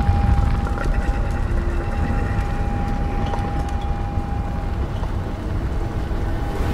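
A low, steady rumble of a large fire burning, with a thin, steady high ringing tone held above it.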